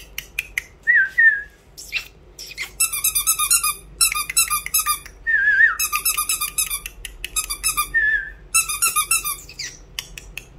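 High, rapid chirping whistles in four bursts of about a second each, with sharp clicks between them and three short wavering whistle notes.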